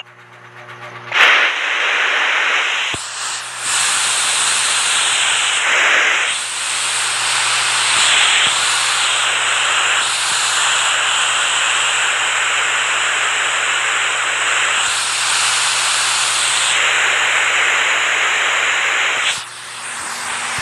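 Rushing water making a loud, steady hiss that starts about a second in and dips briefly a few times.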